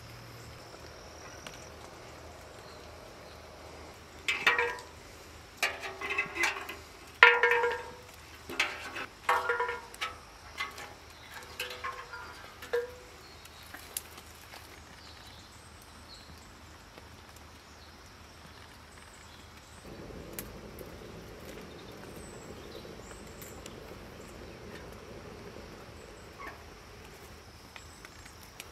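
An animal calling repeatedly outdoors, about a dozen short loud calls in the first half. A low steady rumble sets in about two thirds of the way through.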